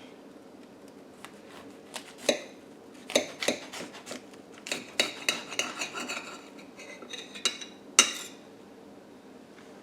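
A knife cutting a bagel sandwich in half: a run of irregular clicks and scrapes as the blade saws through and knocks against the surface beneath, with one sharp knock near the end.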